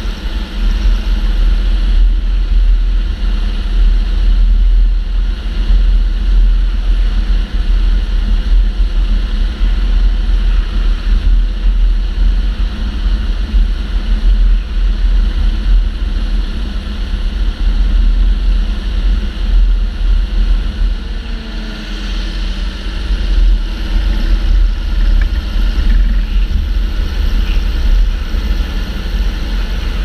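John Deere 7930 tractor driving, its engine running steadily, with heavy low wind rumble on a microphone mounted on the tractor's bonnet.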